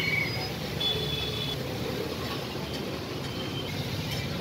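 Hot oil sizzling steadily in a deep fryer as a spiral potato and fries cook, over a steady low background rumble, with a faint high beep about a second in.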